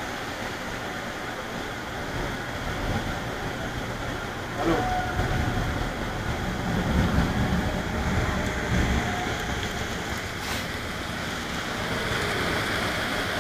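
Steady rain and traffic noise through a window, with a low rumble swelling about five to nine seconds in.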